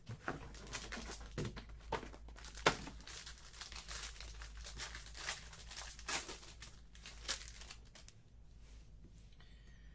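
Plastic wrapping crinkling and tearing in a run of irregular sharp rustles as a sealed trading-card box is unwrapped and opened, dying down near the end.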